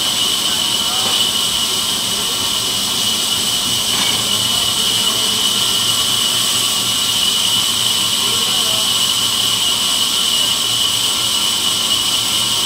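Sawmill band saw running: a loud, steady high whine that holds without let-up.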